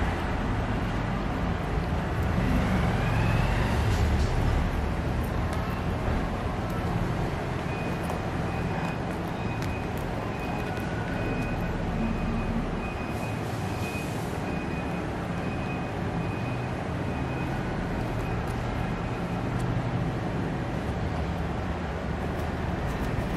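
Steady low rumble and hiss of background noise, with a faint high beeping tone repeating for several seconds in the middle.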